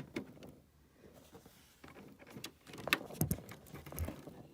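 Scattered light clicks, taps and knocks of hands handling parts around a furnace's condensate drain hose and pan, busier in the second half, with a couple of duller thumps about three and four seconds in.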